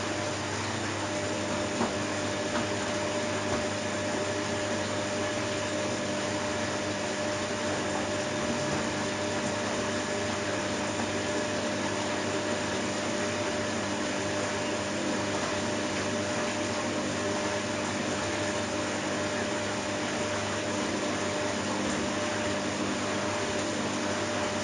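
Washing machine running steadily: a constant motor hum over an even whooshing noise, without pauses or changes.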